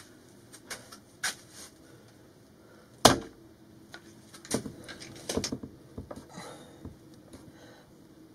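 Clicks and knocks of a yellow quick-release bar clamp being released and taken off a cabinet, with one sharp knock about three seconds in as the loudest, and a few lighter knocks a second or two later.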